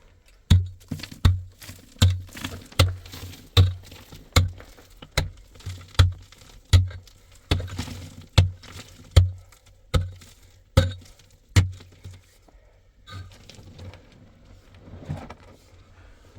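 A hand tool striking something hard with heavy, evenly paced blows, about fifteen strikes roughly 0.8 seconds apart, stopping about twelve seconds in; quieter scraping and shuffling follow.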